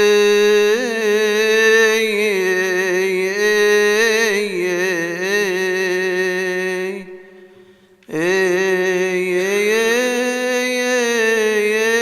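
A single male voice chanting a Coptic Orthodox hymn in long melismatic phrases, holding each note and ornamenting it with wavering turns. About seven seconds in the voice stops for a breath, then comes back a second later on a new held note.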